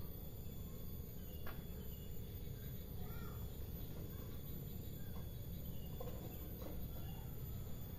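A few faint, short bird chirps and a soft click spread over steady low outdoor background noise.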